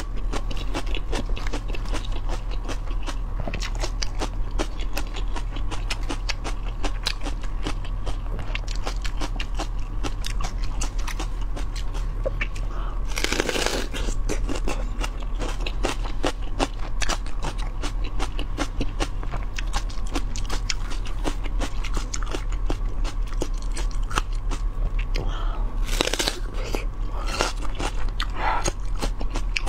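Close-miked crisp chewing and biting of raw vegetables, with many rapid crunches throughout and two louder bites, about halfway and near the end, over a steady electrical hum.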